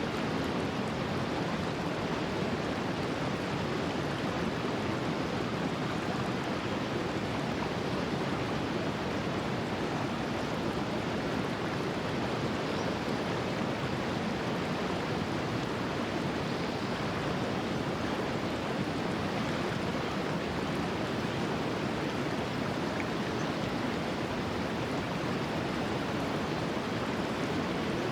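Gorge stream flowing steadily: an even, constant rush of running water.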